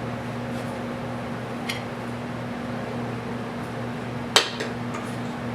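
A few clinks and one sharp knock of kitchenware, a mixing bowl against a baking pan as batter is poured, the loudest about four seconds in, over a steady low appliance hum.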